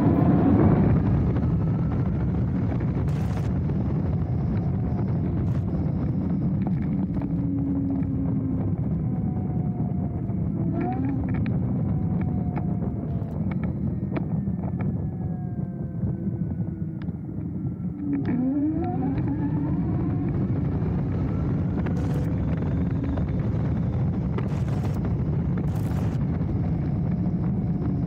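Dualtron Thunder electric scooter ridden on a dirt path: wind rushing over the handlebar microphone and tyre rumble, with the hub motors' whine gliding up and down as the rider speeds up and eases off. There is a sharp rising whine about two-thirds of the way through, and a few short knocks from bumps.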